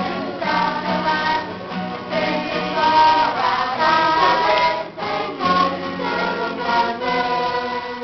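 A group of young men and women singing a Christian song together, accompanied by acoustic guitars.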